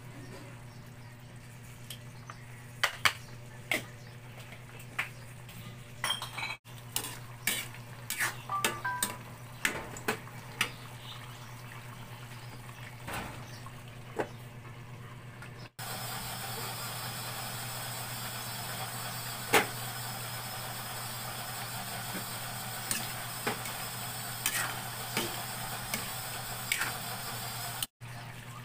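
A metal ladle clinks and scrapes against an aluminium wok and its lid while a chicken stew is stirred and covered. Past the middle, a steady hiss of the stew simmering sets in, with a few clinks over a low steady hum.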